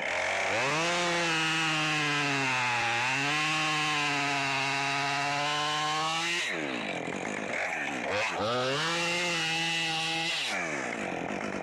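Chainsaw revving to full throttle and cutting into a sycamore limb, its pitch sagging briefly under load about three seconds in. It backs off to idle after about six seconds, then revs up again for a couple of seconds before backing off once more.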